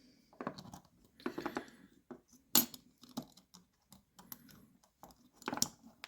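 Small metal lock parts clicking and clinking as the levers of an 8-lever safe lock are lifted out and set down on a hard surface. The sharpest clink comes about two and a half seconds in, and another just before the end.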